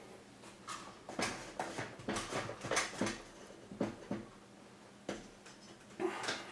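Irregular clicks, knocks and scrapes of hard plastic and aluminium, about a dozen in all: 3D-printed PLA mounting brackets being forced onto the 3D printer's aluminium V-slot rail and the aluminium LED light housing being fitted between them.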